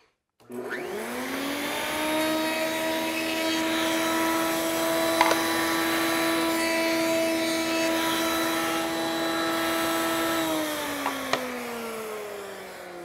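Table-mounted router switched on and spinning up to a steady high whine, running a roundover bit while a test board's edge is fed past it. It is switched off about ten seconds in and winds down with falling pitch.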